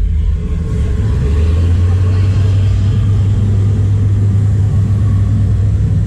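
Steady deep rumble that strengthens about a second and a half in.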